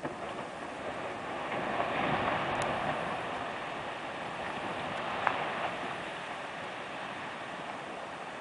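Perito Moreno Glacier calving: a section of the ice front breaks off and crashes into the lake. The result is a long rushing crash that builds over the first two seconds and then slowly fades.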